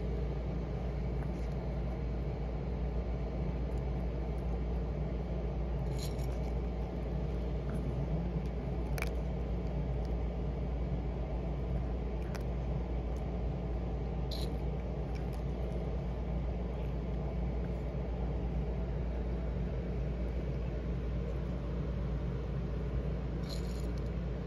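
Steady low rumble of background noise, with a few faint scattered clicks.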